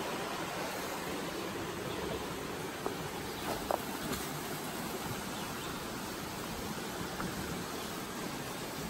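Steady rushing of a forest creek, with a few light footsteps on the leaf-covered trail about three to four seconds in.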